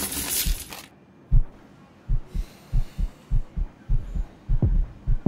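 A heartbeat-like pulse in the film soundtrack: low double thumps repeating steadily, close to two pairs a second. A loud hiss fades out about a second in.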